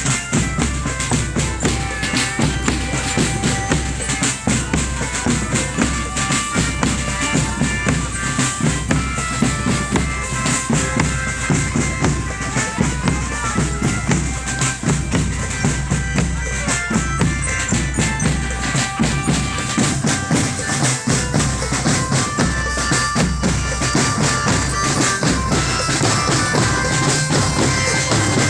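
Marching drum band playing: snare and bass drums beat a steady, quick rhythm under a held melody line.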